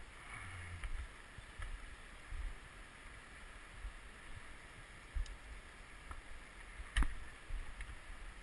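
Steady rush of a flowing river, with irregular low rumbles on the microphone and a single sharp click near the end.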